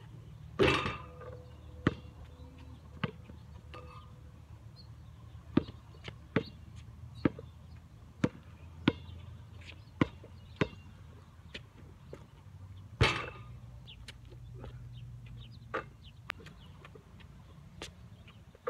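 Basketball being dribbled, a run of sharp single bounces every half second to a second, with two louder hits of the ball striking the hoop's backboard and rim, one shortly after the start and one about two-thirds through, each ringing on briefly.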